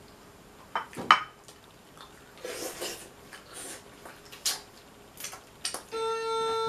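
Close-up eating sounds from crab: scattered wet mouth clicks and smacks, the sharpest about a second in, with short bursts of chewing around the middle. Near the end a steady held tone sounds for under a second.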